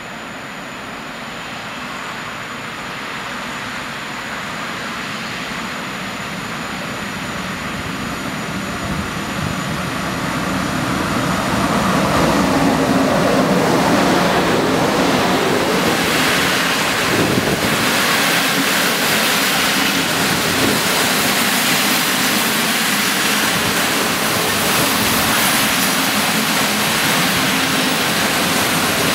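An electric-locomotive-hauled passenger train approaches, growing steadily louder for about twelve seconds. The locomotive passes with a falling whine, and then the coaches go by with a steady loud rumble and rush of wheels on rail.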